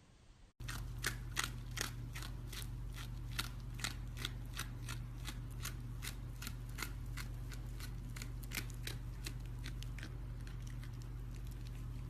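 Quick, irregular series of small sharp clicks or snips, a few a second, over a steady low electrical hum.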